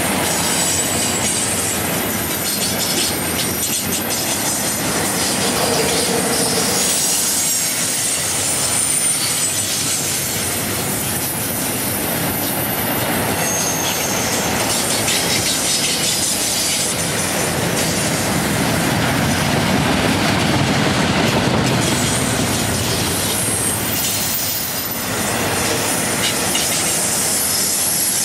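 Double-stack intermodal well cars rolling past: steady rumble and clatter of steel wheels on the rails, with thin high-pitched wheel squeals coming and going.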